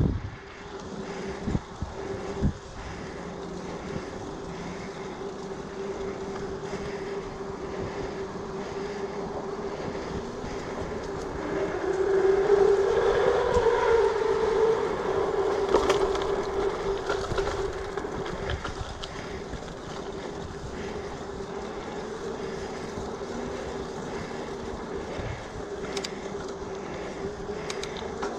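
Giant Fathom mountain bike rolling on a paved cycleway: a steady tyre hum under wind on the microphone, with a few knocks from bumps in the first few seconds. Around the middle the hum grows louder and a little higher as the bike picks up speed down a ramp.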